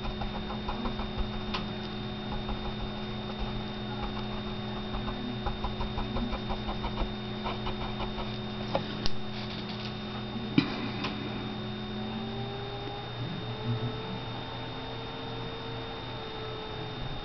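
Steady electrical mains hum with a faint high whine, with faint light ticks scattered through the first half. From about two-thirds of the way in, a faint tone slowly rises and falls over the hum.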